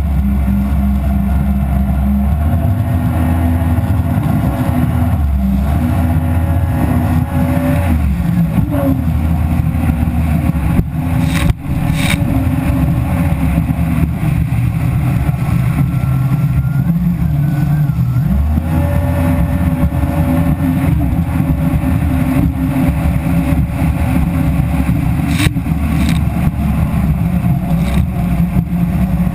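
Jet ski engine running under way, its pitch stepping up and down as the throttle changes, with a brief dip and a sharp knock about halfway through.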